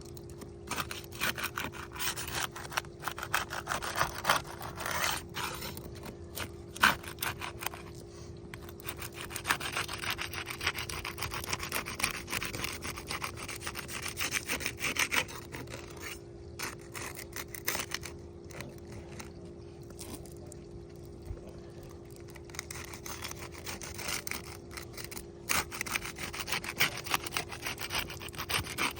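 A pry tool worked under asphalt roof shingles to break their adhesive seal strips: irregular scraping and rubbing of metal against the shingles' sealant and granules, with small clicks and scratches, coming in bursts with short pauses.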